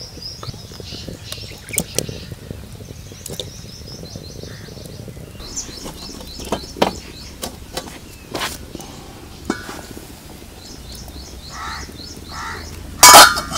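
Songbirds chirping in repeated series of short, high notes, with scattered light clicks. A couple of loud clinks sound near the end.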